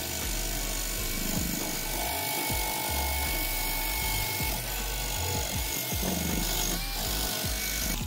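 Cordless drill spinning a wire wheel brush against the rusty cast-metal end cover of an old water pump motor: a steady whine and scrubbing as the brush strips rust and old paint. Background music plays under it.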